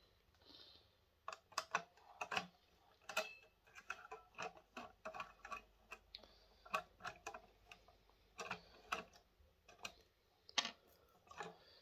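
Faint, irregular light clicks and taps from a screwdriver and screws as the steel outer cover of a PC power supply unit is unscrewed and lifted off.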